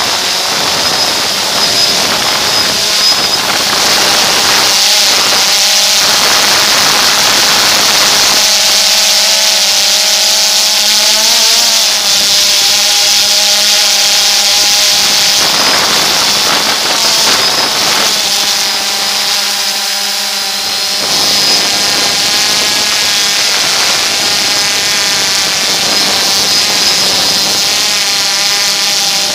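DJI Phantom 2 quadcopter's four electric motors and propellers whining in flight, heard close up from the drone itself. The whine is loud and steady, and its tones waver in pitch as the motors change speed to hold and steer the drone.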